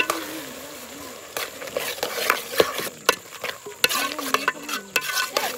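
A spoon stirring and scraping in a cooking pot over frying food, with many sharp knocks against the pot. The knocking starts about a second in and stops shortly before the end.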